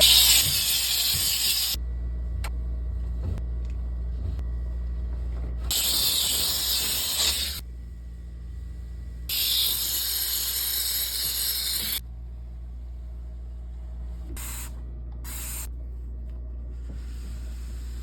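Cleaning spray hissing in several bursts, each one to three seconds long, with a few shorter bursts near the end.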